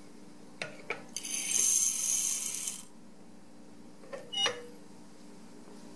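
A couple of sharp clicks, then Vihtavuori N570 smokeless powder pouring through a baffled powder transfer device and pattering into a brass scale pan as a dense high rattle for about a second and a half. Two more short clicks come a couple of seconds later.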